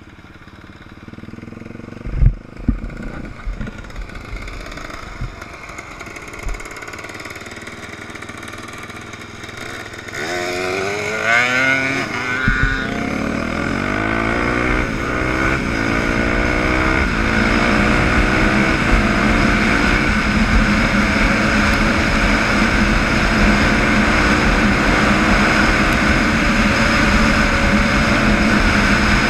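Off-road motorcycle engine heard from the rider's own bike. A few sharp knocks come in the first seconds, then about ten seconds in the engine revs up through several gear changes and holds a loud, steady note.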